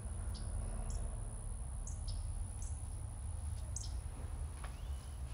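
Small birds chirping, about six short high chirps spread irregularly, over a steady low rumble.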